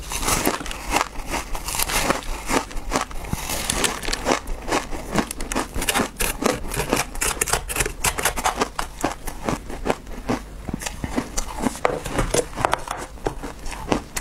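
Close-miked crunching of frozen ice cake being chewed, a steady run of crisp crackles, with a metal spoon scraping and digging into the crumbly frozen cake.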